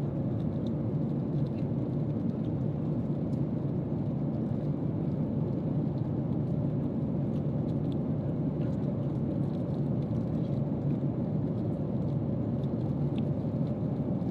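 Steady airliner cabin noise in flight: a low, even rush of engines and airflow, with a few faint clicks.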